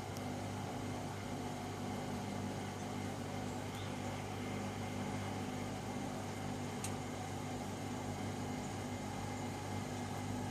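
Miele Gala W961 washing machine's drum motor running with a steady hum during its continuous soft-start spin after a boil wash, with a faint click about two thirds of the way through.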